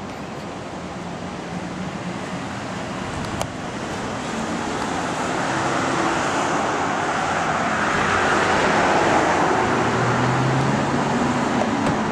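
Road traffic noise from passing cars, swelling to its loudest about eight to nine seconds in as a vehicle goes by close.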